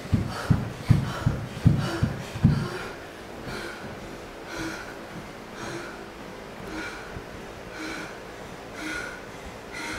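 A dancer's feet landing jump after jump on a studio floor, about seven dull thuds in quick succession that stop after about two and a half seconds; then her hard breathing after the exertion, about one breath a second.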